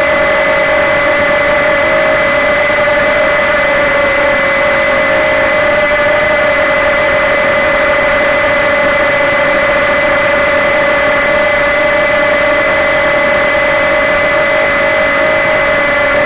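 Walkera QR Ladybird V2 micro quadcopter's motors and propellers whining steadily in flight, heard up close from the keychain camera riding on the craft. The pitch holds level, with small wavers now and then.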